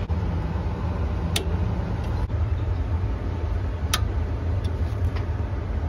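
A Schrader valve core being refitted into a refrigerant access port with a valve core tool: two sharp metallic clicks about two and a half seconds apart, then a few fainter ticks, over a steady low machinery hum.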